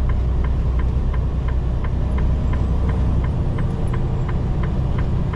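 Semi truck driving on the highway, its engine and road noise heard as a steady low rumble inside the cab, with a light regular ticking about three times a second.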